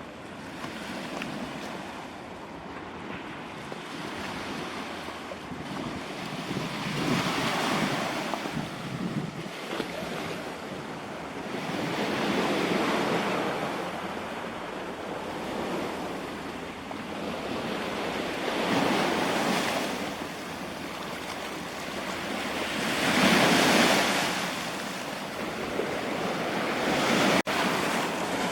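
Sea waves breaking on the shore, the surf swelling and ebbing every five seconds or so, with wind on the microphone.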